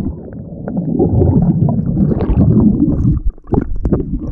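Muffled underwater churning and bubbling heard by a submerged camera, a low, uneven rumble of water turbulence and air bubbles, with a few sharp clicks near the end.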